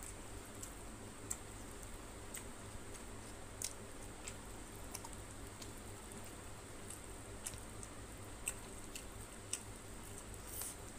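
Close-up eating sounds: irregular soft wet clicks and squishes from chewing and from a hand mixing rice and tilapia fish curry on a plate, about once or twice a second, over a steady faint hum and a thin high whine.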